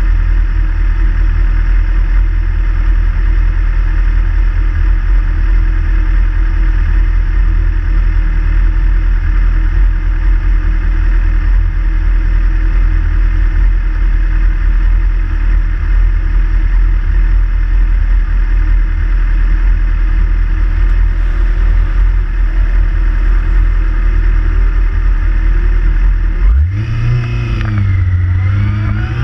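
Motorcycle engines idling together in a start queue, a steady low rumble. About three seconds before the end one engine revs and the bike pulls away, its pitch rising, dipping, then rising again.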